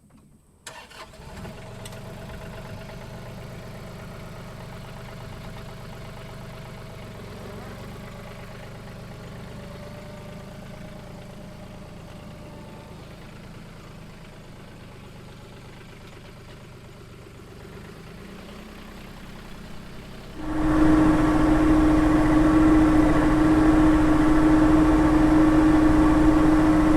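An engine idling low and steady, then about 20 seconds in throttled up suddenly, running loud at a steady speed with a strong droning pitch.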